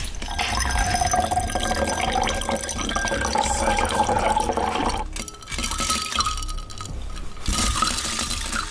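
A drink trickling slowly from a glass carafe full of ice into a drinking glass, with faint clinks of ice and glass. The pour breaks off briefly about five seconds in and then resumes, its pitch higher as the glass fills.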